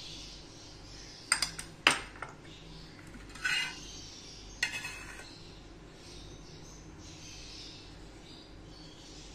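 A metal spoon clinking against dishes: a quick cluster of sharp clinks about a second and a half in, a short scraping rattle a couple of seconds later, and one more clink soon after, over faint steady room hum.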